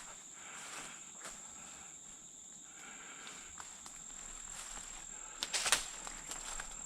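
Footsteps through dry leaf litter and twigs on the forest floor, with a brief cluster of sharper cracks a little before the end, over a steady high-pitched drone.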